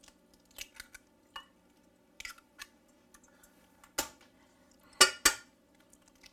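Eggs being cracked over a stainless-steel mixing bowl: small clicks of eggshell being broken and pulled apart, with sharp knocks of shell against the steel bowl about four and five seconds in, the last two the loudest.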